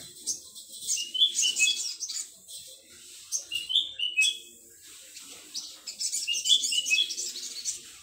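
Young male olive-backed sunbird singing: three bursts of rapid, high twittering, each with a few slightly lower slurred notes.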